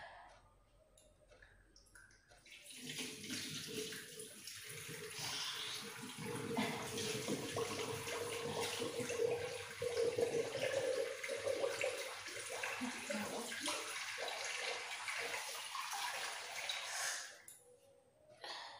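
Water from a tap running into a wash basin, starting a few seconds in and shutting off shortly before the end.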